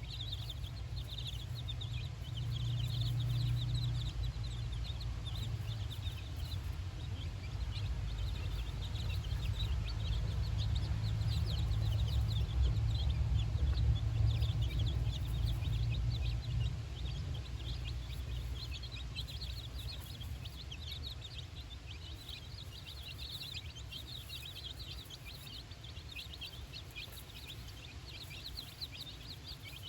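Four-day-old chicks peeping continually, many short high peeps overlapping, over a low rumble that is loudest in the first half and eases off after that.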